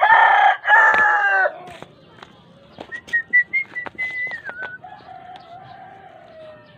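A rooster crowing loudly, one long crow that ends about a second and a half in, followed by fainter drawn-out calls and a few light clicks.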